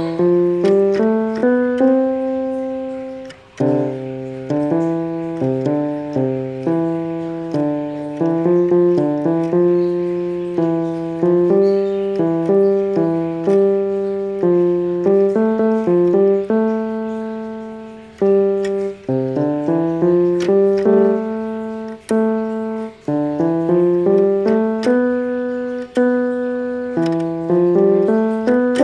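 Electronic keyboard played in a piano voice: a tune of notes with several sounding together, broken by a few brief pauses between phrases.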